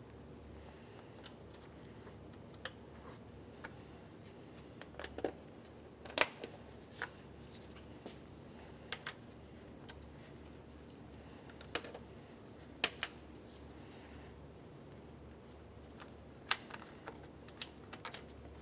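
Plastic push-type retainer clips being pressed and locked into the plastic radiator support cover: about a dozen irregular sharp clicks and snaps, a second or so apart.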